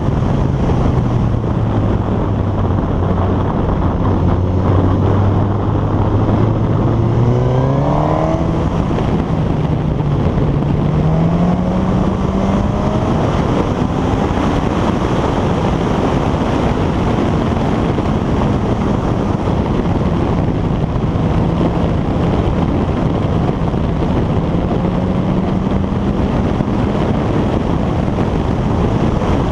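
Suzuki GSX-S1000's inline-four engine running under a steady rushing noise on the microphone. Its exhaust note climbs in pitch about a third of the way in, climbs again a few seconds later, then holds fairly steady.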